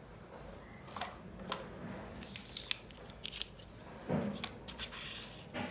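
Scissors snipping, a series of short, sharp cuts at irregular intervals, as when cutting open toy packaging.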